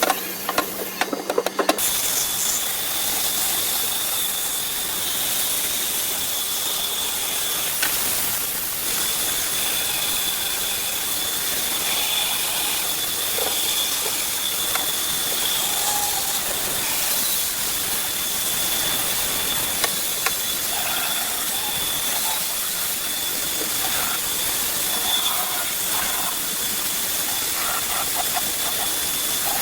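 Woodworking power tool running steadily: a continuous hiss with a steady high whine, after a few sharp knocks in the first two seconds.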